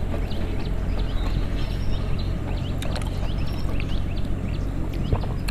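Steady low outdoor rumble with many small birds chirping all through.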